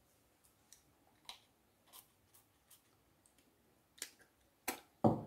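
Small spray-candy pump bottle clicking and giving a few short spritzes, spread out, the loudest near the end.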